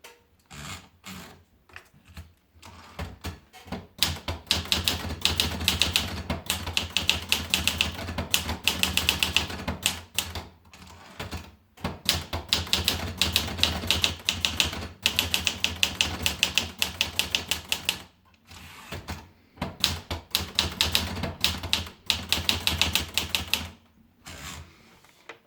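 Olivetti Lettera DL portable manual typewriter being typed on: fast runs of sharp key strikes, several a second, broken by a few short pauses.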